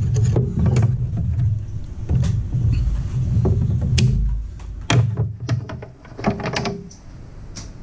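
Clicks, taps and scrapes of a green ground wire and a hand tool being worked into a metal electrical enclosure, over a low rumble that fades after about five seconds.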